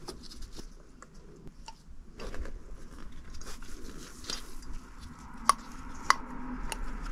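Handling noise from a Honda Beat cylinder head being lifted and tilted on a bench: rustling and light knocks, with two sharp metallic clinks a little over half a second apart near the end.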